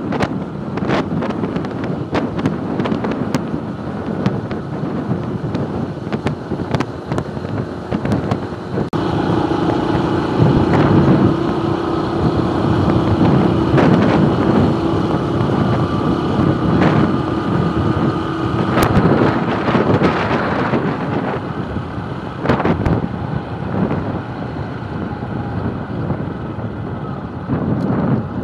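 Motorcycle engine running under way with wind buffeting the microphone; a steady engine note holds through the middle, and the noise eases a little in the last several seconds.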